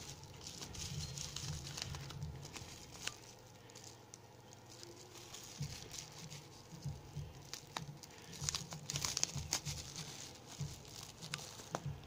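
Bubble wrap crinkling and crackling as it is unwrapped by hand, with masking tape being peeled away; the crinkling comes in irregular handfuls, busiest about nine seconds in.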